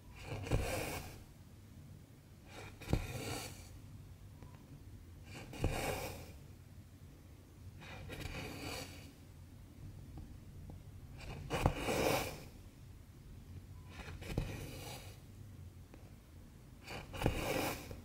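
Cotton embroidery thread pulled through 11-count cross-stitch fabric with a needle: a swishing rasp about every three seconds, seven strokes in all, each starting sharply and dying away within a second.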